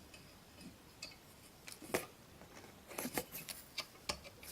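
Scattered light clicks and taps of hard objects being handled: a sharp one about two seconds in, a quick cluster around three seconds in, and a few more near the end.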